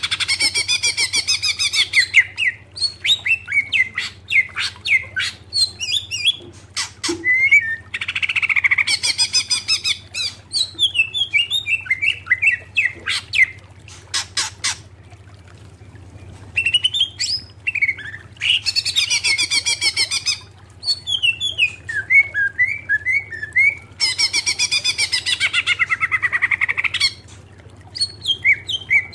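Green leafbird (cucak ijo) singing: four long bouts of fast rattling trills, with quick high chirps and whistled notes in between. A faint steady low hum runs underneath.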